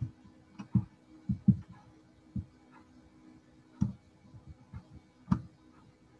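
Irregular soft knocks and clicks, with the loudest ones about a second in and near four and five and a half seconds, over a steady low hum.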